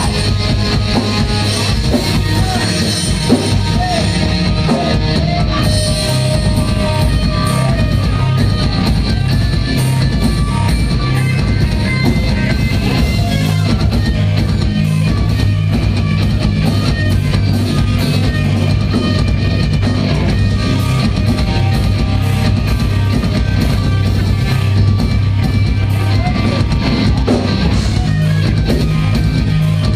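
Live metalcore band playing: heavily distorted electric guitars and bass over fast, constant drumming, with a few vocal lines early on.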